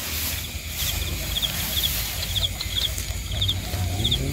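Night insects chirping in short, high, pulsed chirps that repeat again and again, over low rustling and handling noise as a wire cage rat trap is set in the grass.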